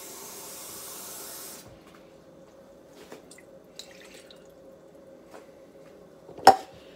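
Water running from a kitchen tap for about a second and a half, then shut off. A few light clicks follow, and a sharp knock near the end.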